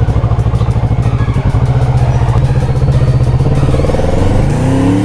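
Kawasaki Z650's parallel-twin engine on its stock exhaust, running at low revs with a pulsing note, then rising in pitch as the bike accelerates near the end.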